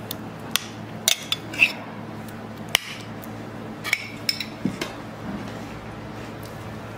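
Metal spoon stirring in a ceramic bowl, clinking and scraping against its sides. There are several sharp clinks over the first four seconds and fewer after that.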